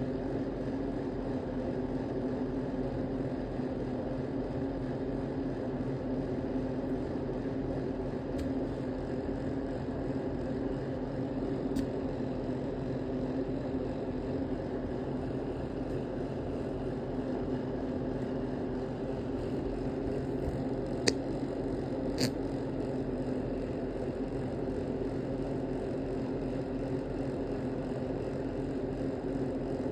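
Steady low mechanical hum, like a motor or vehicle running, with a few brief sharp clicks, two of them close together past the middle.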